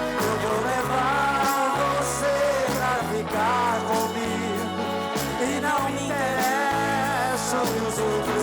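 Live band music: bass notes and drums under a wavering, sustained melody line, with no words clearly sung.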